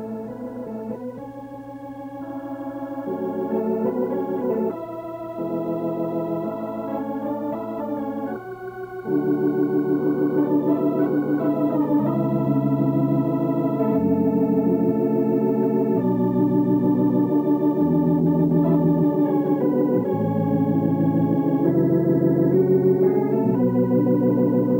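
Organ music: held chords with a wavering vibrato, changing every second or two and growing louder about nine seconds in.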